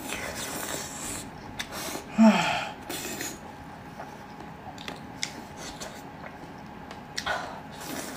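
Close-miked eating sounds: sharp hissing breaths drawn in, and a short low vocal sound falling in pitch about two seconds in, which is the loudest moment. Another breathy hiss comes near the end.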